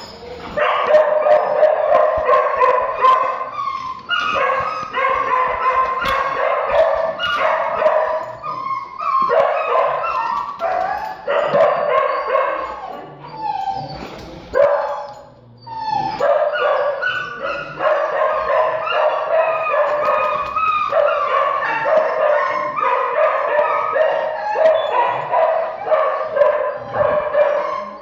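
Dogs in a kennel barking and yelping almost without pause, with a brief lull a little past halfway.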